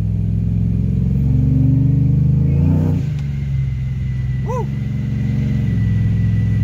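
Ram pickup's TorqStorm-supercharged Hemi V8 pulling from inside the cab: the engine pitch rises for about three seconds, drops suddenly, then runs lower and climbs again near the end. A faint steady high whine sits over the engine after the drop.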